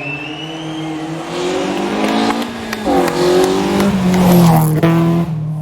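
Rally car engine under hard acceleration, revs climbing, with a gear change about two and a half seconds in, then climbing again to its loudest before the throttle is lifted suddenly near the end.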